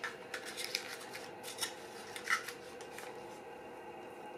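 Light clicks and short scrapes from handling a Horizon S3 Pro panoramic film camera while threading 35mm film, thinning out after about three seconds.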